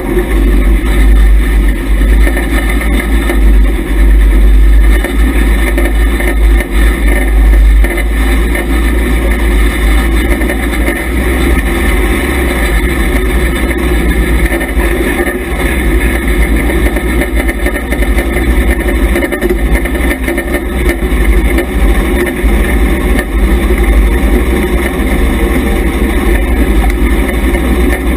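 IMCA Hobby Stock race car's engine running, heard from inside the car, over a heavy low rumble. It is loudest in about the first eight seconds, then a little lower.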